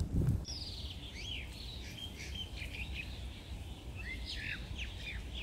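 Small birds chirping: many short, quick, falling notes in rapid runs, with a brief lull about halfway through, over a steady low background rumble.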